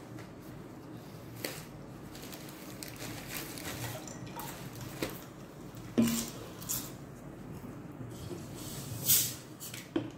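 Paper sandwich wrappers rustling and small knocks on a table, then near the end a short fizzing hiss as a plastic soda bottle is unscrewed.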